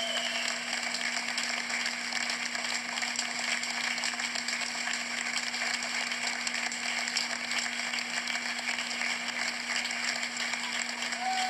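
Audience applauding continuously over a low steady hum.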